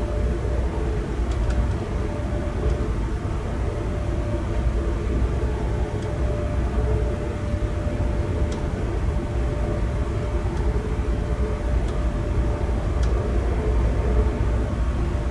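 Passenger train running at speed, heard from inside the carriage: a steady low rumble of wheels on the rails with a faint steady hum and a few light clicks.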